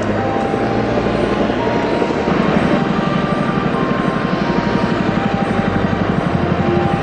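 Rotorcraft flying nearby: a steady rushing engine noise, joined a little over two seconds in by a fast, even beating of the rotor blades that keeps on.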